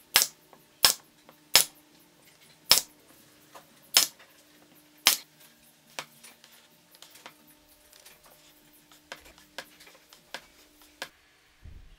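Pneumatic nail gun firing six times into wood, each shot a sharp crack, over about the first five seconds. After it come lighter clicks and knocks of wooden parts being handled.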